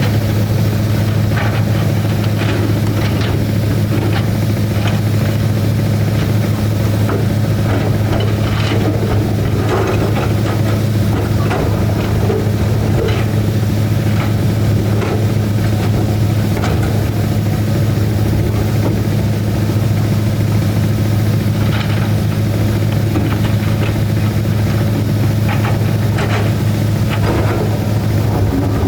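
Hydraulic excavator's diesel engine running steadily, with irregular knocks and scrapes of rock being moved, clustered around a third of the way in and near the end.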